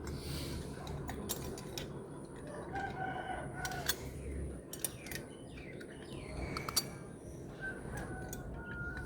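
Small plastic charms and beads clicking and tapping as they are handled, with a rooster crowing twice in the background: once about three seconds in and again near the end.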